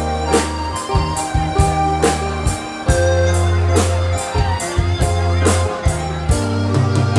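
Instrumental band music with a steady drum beat about twice a second under sustained bass and keyboard notes, the backing of a song with no vocal line in it.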